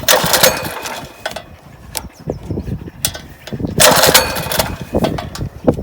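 Small gasoline engine on a wheel line irrigation mover being cranked twice, with irregular low firing between attempts, not settling into a steady run. Its choke and throttle settings are being found by trial.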